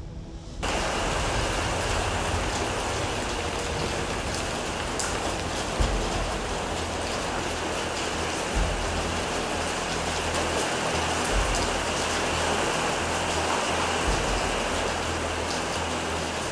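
Heavy storm rain pouring onto rooftops and the street, a dense steady hiss that starts abruptly about a second in, with low rumbles swelling every few seconds.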